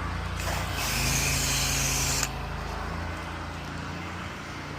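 Pressure washer engine running steadily, with the hiss of spray from the wand from about half a second in until it cuts off a little after two seconds.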